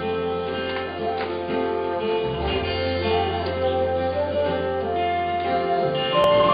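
Live music from a small church orchestra with acoustic guitar and keyboard, playing held chords under plucked guitar notes. About six seconds in it gets louder as a higher melody line comes in.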